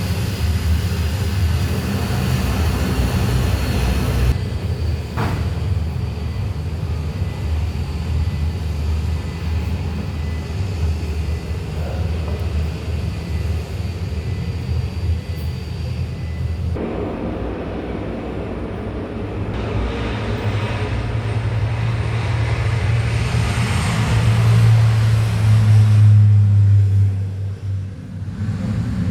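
Aeroplane engines running through a takeoff: a steady low drone with faint high whining tones. The sound changes abruptly twice, swells to its loudest about 24 to 26 seconds in, then drops away near the end.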